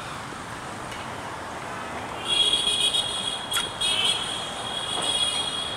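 Street traffic ambience. From about two seconds in, a steady high-pitched electronic tone like a buzzer sounds over it and holds to the end.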